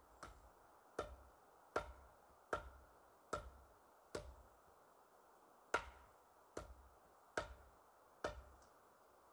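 Repeated blows on wood, ten sharp strikes at a steady pace of about one every 0.8 seconds, with one slightly longer gap midway.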